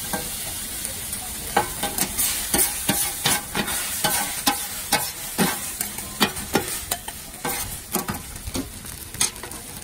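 Rice noodles sizzling on a hot iron griddle as two metal spatulas scrape and clack against the plate in quick, irregular strokes, over a steady high hiss.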